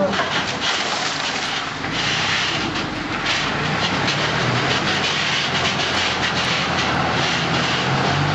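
Rotopress garbage truck's rotary packer running, grinding and crushing bagged rubbish in the rear hopper, over the truck's engine held at raised speed for the compactor. The noise is a continuous rough grinding and hissing over a low hum.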